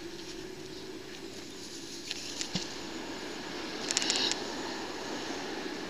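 Magnet-fishing rope being hauled up over a concrete bridge parapet, with a few short scrapes about two seconds in and a louder burst of rasping scrapes about four seconds in, over a faint steady outdoor background.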